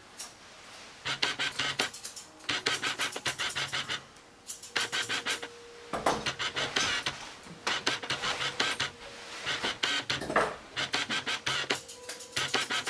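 Grooming shears snipping through a terrier's coat in quick runs of crisp cuts, each run about a second long with short pauses between them.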